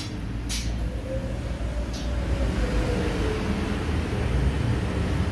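Steady low mechanical rumble, with a couple of light clicks in the first two seconds.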